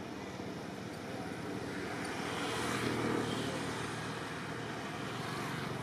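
Engine noise of a passing vehicle, swelling to a peak about three seconds in and then fading.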